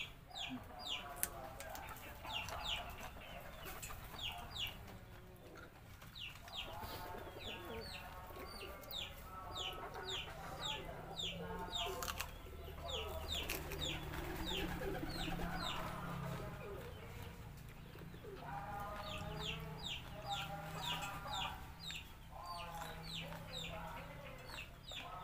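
Chickens clucking, over a run of short, high chirps repeating several times a second.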